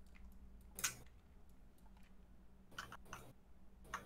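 A few scattered clicks of a computer keyboard and mouse, about four in all, over a faint steady hum.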